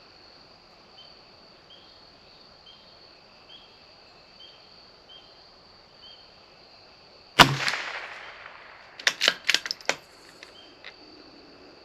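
A single shot from a CZ 457 bolt-action .22 LR rifle, with a short ring-out. About a second and a half later comes a quick run of metallic clicks as the bolt is worked to eject the case and chamber the next round.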